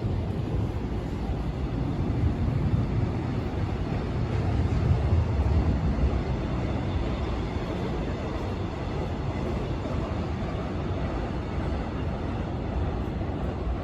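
Steady low rumble of a rail vehicle running on the track, swelling slightly a few seconds in.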